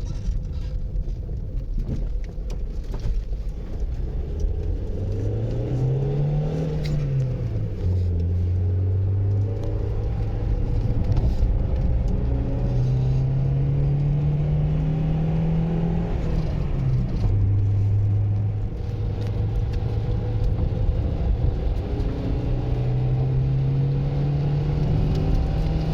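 A vehicle engine running under load and revving up. Its pitch climbs, falls back sharply twice as it shifts gear, then climbs again, with a steady rumble throughout.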